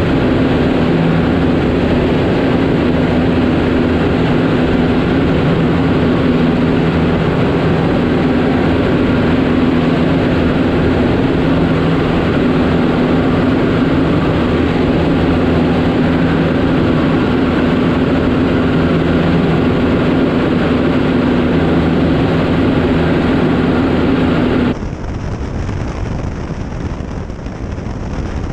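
Cessna 152's four-cylinder Lycoming piston engine and propeller in cruise, a loud steady drone. About 25 seconds in it cuts abruptly to a quieter, duller rumble.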